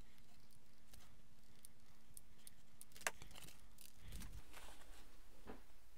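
Faint clicks and handling noise from a hot glue gun laying a bead of glue on foam board, with one sharper click about three seconds in. About four seconds in, a faint steady hum stops and hands rub and press the folded foam board wing together.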